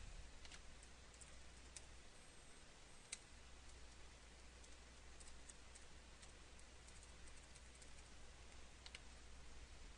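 Near silence with faint, scattered clicks of a computer keyboard and mouse, over a faint low hum.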